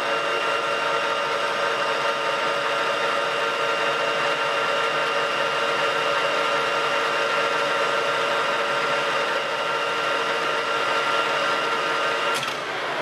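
Colchester Master 1200 geared-head lathe running steadily with the chuck at 2,500 rpm, a constant multi-tone gear whine. Near the end a sharp clunk as the foot brake is applied, and the whine starts to drop as the spindle slows.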